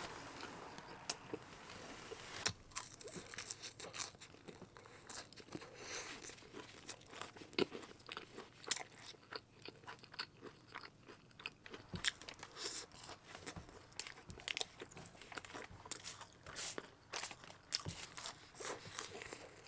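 Close-miked chewing and crunching of an In-N-Out meal, a dense, irregular run of crisp clicks and smacks.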